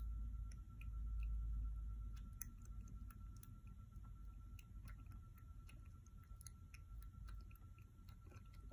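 Tabby kitten suckling milk from a feeding bottle: faint, irregular wet clicks and smacks of its mouth working the teat. A low rumble sits under the first two seconds.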